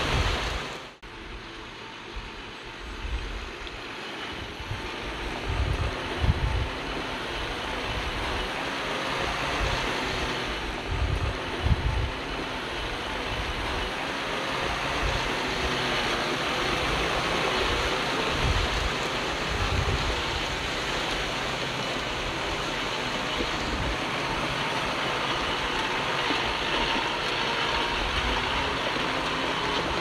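Komatsu D51PX crawler bulldozer's diesel engine running steadily under load, a dense rumbling noise with a few heavy low thuds. The sound drops away sharply about a second in, then builds back up.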